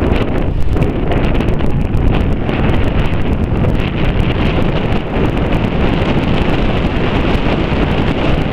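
Wind buffeting the microphone of a camera on a moving vehicle, a loud, unsteady rumble over road noise.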